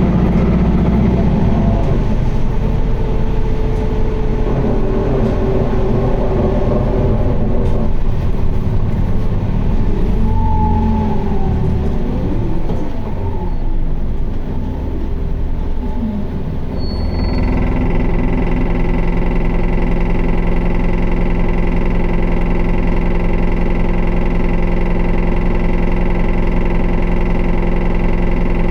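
Isuzu Erga city bus's four-cylinder diesel heard from inside the cabin: running under way with its pitch shifting, then slowing and settling about 17 seconds in into a steady idle hum of several even tones. This bus is known for an odd noise and heavy vibration.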